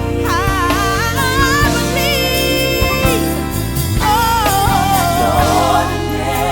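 Gospel song: a solo voice sings long notes with a wide vibrato over sustained backing chords.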